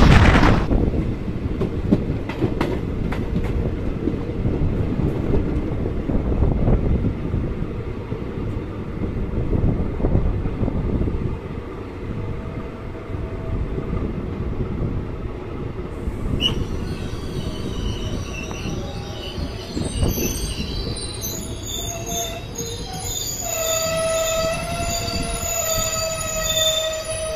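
Passenger train coaches running on the track, heard from the open coach door: a steady rumble with wheel clacks. From a little past halfway, high steady metallic squealing sets in and grows as the train brakes and slows into the station.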